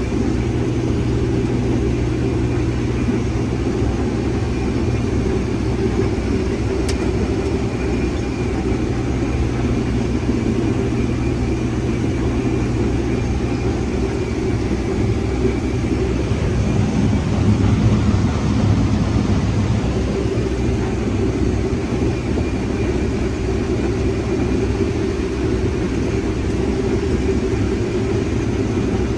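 Heavy farm machinery engine running steadily under load during corn harvest, a dense low drone that swells slightly about two thirds of the way through.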